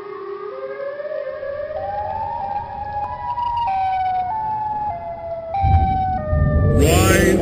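A siren-like wail rising slowly in pitch over a deep rumble, then stepping up and down between pitches. Near the end a heavy low hit and a loud burst of music come in.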